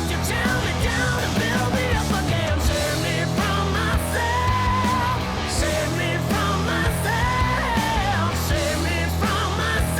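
Background rock music with a sung vocal line over bass and drums.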